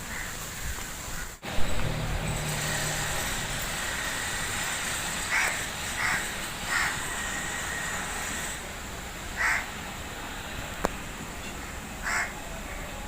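A bird giving short repeated calls: three in quick succession, then two more spaced a few seconds apart, over a steady background hiss.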